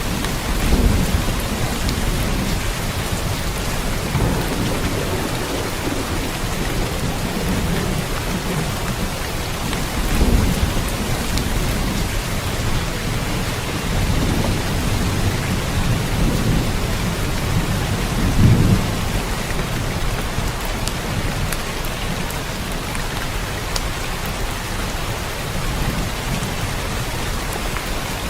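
Steady rain falling, with low rolling rumbles of thunder that swell several times, strongest about a second in, around ten seconds and around eighteen seconds.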